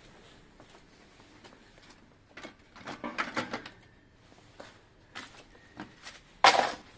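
Scattered knocks and rattles of objects being handled and moved. A busier cluster comes about halfway through, and one loud, short clatter comes near the end.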